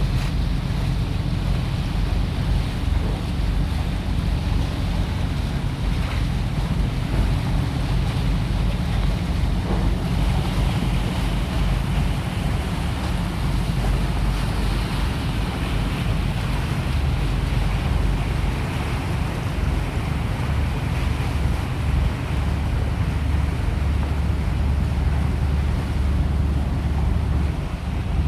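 Boat's engine running steadily under way: a constant low rumble with water rushing past the hull and wind on the microphone.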